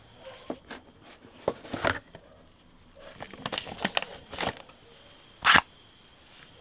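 Handling noises from unpacking: scattered clicks and knocks, then clear plastic packaging crinkling, with one louder, brief rustle about five and a half seconds in.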